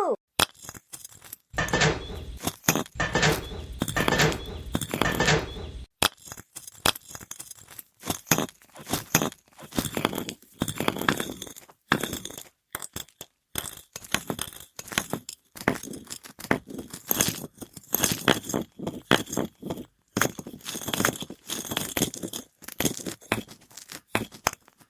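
Irregular small clicks, clinks and scrapes of small hard objects being handled, with a denser stretch of rustling and grinding noise in the first few seconds.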